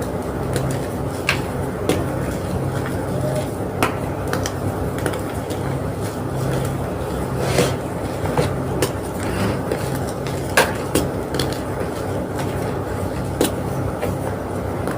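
Homemade gym chalk block being crushed and crumbled: sharp, irregular crunches and snaps over a steady low background noise.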